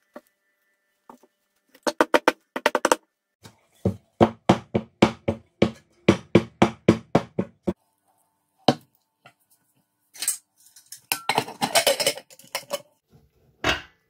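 An aluminium pressure cooker knocked repeatedly against the counter to settle the cake batter inside. First comes a quick cluster of ringing metallic knocks, then a steady run of about three a second. Near the end there is a longer clatter and scrape of metal as the cooker's lid is handled and fitted.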